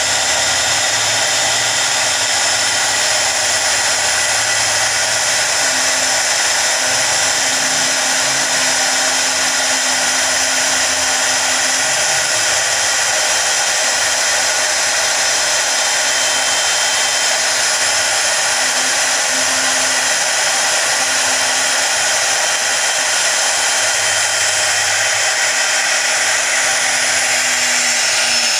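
CNC router spindle running steadily with a high whine as its small bit carves lettering into a wood panel.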